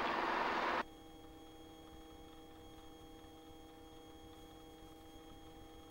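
Hiss on the open headset intercom line, which cuts off abruptly just under a second in as the microphone closes. A faint, steady electrical hum of a few held tones follows.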